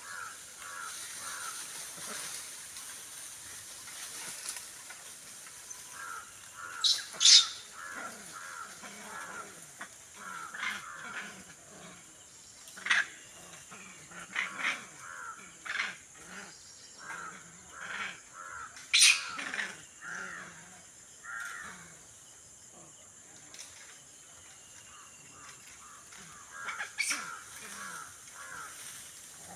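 Harsh animal calls in short repeated series from the treetops, with a few much louder sharp cries about a quarter, half and two-thirds of the way in.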